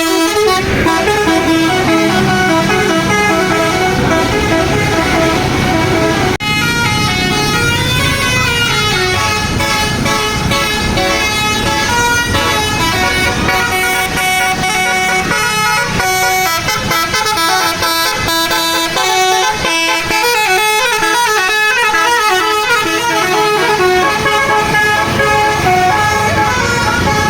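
A bus's telolet basuri horn, a set of multi-trumpet air horns, playing a melody: a run of clear horn notes stepping up and down in pitch, continuously and loudly.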